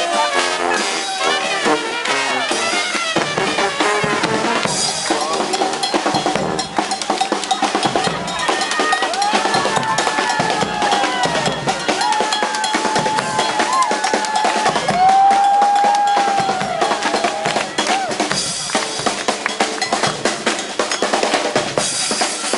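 Street brass band playing: snare and bass drums keep up a busy beat under horns, with long held and sliding horn notes in the middle.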